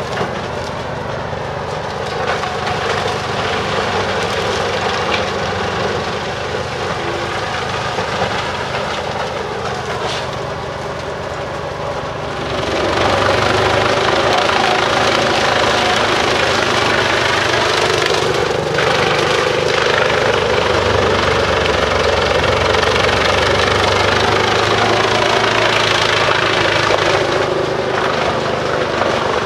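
Bruks 1006 ST truck-mounted wood chipper running on its separate 720 hp engine, chipping forest slash. About twelve seconds in, the sound steps up and grows louder and harsher, staying that way to the end.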